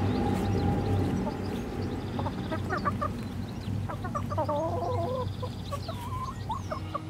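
Domestic hens clucking in short calls, starting about two and a half seconds in, over a low rumble that slowly fades.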